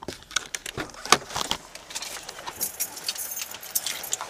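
A car door being unlatched and pushed open from inside: a scatter of sharp clicks and rattles from the handle and latch, with keys jingling.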